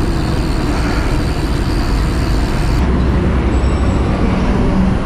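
Steady noise of busy road traffic, buses and cars, heard from a bicycle moving along a rough path beside the road. A steady engine hum comes in near the end.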